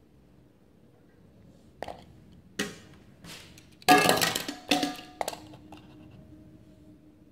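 Die-cast toy cars clinking and knocking as they are handled and set down, with a short clattering rattle about four seconds in, the loudest sound.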